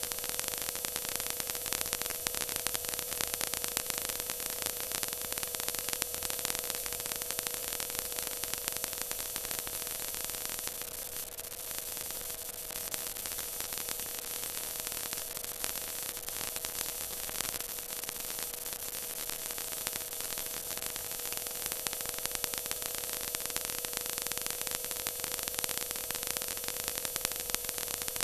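Stock car's V8 engine running flat out at speed, picked up by an in-cabin camera as a harsh, crackling, distorted noise over a steady high drone. It eases slightly about eleven seconds in.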